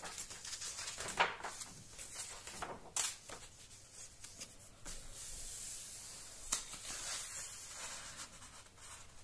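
Magazine pages being turned and handled: paper rustling and sliding, with a few short, crisp snaps as pages flip over.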